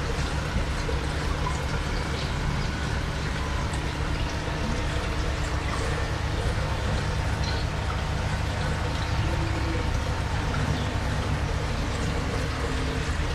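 Aquarium filter running: a steady trickle of water with a low, even hum.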